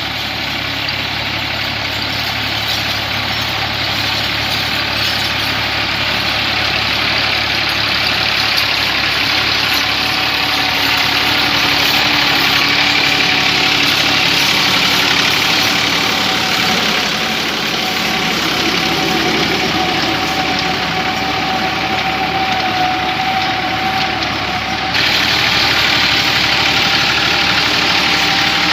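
Massey Ferguson 260 tractor's diesel engine running steadily while driving a rotavator, with a faint steady whine over it. It gets abruptly louder about 25 seconds in.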